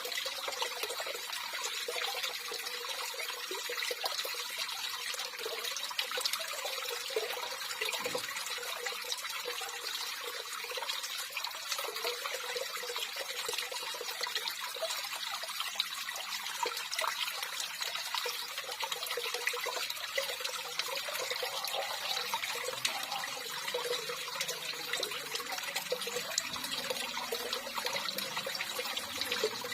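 Water running steadily, an even rushing hiss dense with many small splashes.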